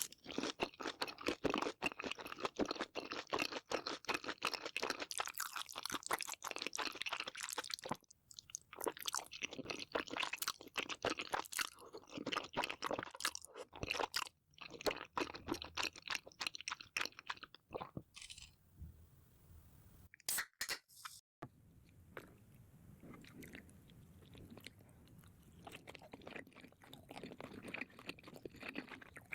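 A person chewing crunchy food, with dense crackling crunches in several runs separated by short pauses. After about twenty seconds it gives way to softer, quieter chewing.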